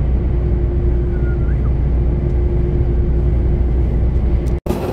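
Steady engine and road rumble inside a Mercedes-Benz truck cab at motorway speed, with a steady hum over it. Near the end the sound cuts out abruptly for an instant and comes back a little quieter.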